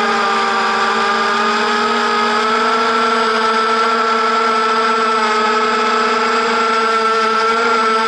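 Electric motors and propellers of a 250-size FPV racing quadcopter whining steadily, as heard from the camera on board, with the pitch rising slightly a couple of seconds in.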